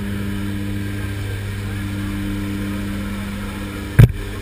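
Steady drone of the jump plane's engine heard inside the crowded cabin, with one sharp, loud knock about four seconds in.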